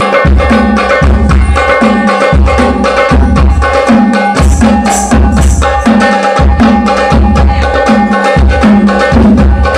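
Loud music with a heavy bass that pulses at an even beat, under busy hand-drum-like percussion, played through a sound system under test.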